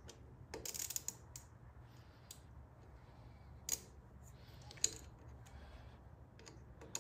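Faint, scattered clicks and light metallic taps from a hand tool and parts being handled at a motorcycle's right handlebar brake lever and switch housing, with a small cluster about a second in and one sharper click near the middle.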